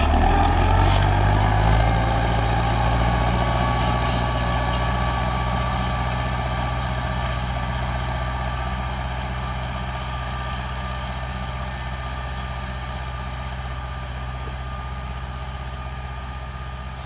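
Tractor engine running steadily under load as it pulls rotary 'hedgehog' weeders through potato rows. It fades gradually as the tractor moves away.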